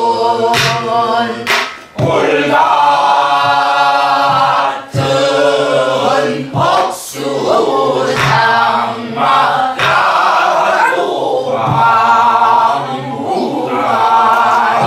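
A group of voices singing a Korean southern (Namdo) folk song together, with strokes of a buk barrel drum beaten with a stick.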